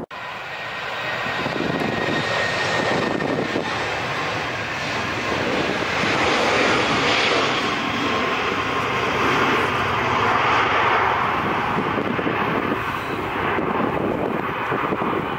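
Jet engines of a Boeing 737 airliner running at high power as it rolls along the runway: a loud, steady jet noise that swells over the first couple of seconds and then holds.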